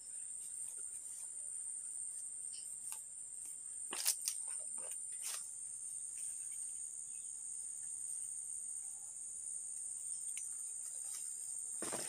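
Forest insects, crickets or cicadas, droning steadily on one high pitch, with a couple of faint clicks about four and five seconds in.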